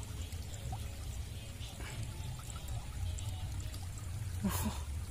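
Shallow stream water running and trickling steadily through a small jam of debris and reeds.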